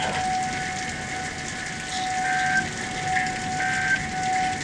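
Heavy thunderstorm rain pouring steadily, with a steady high tone held throughout and a fainter higher tone coming and going three times.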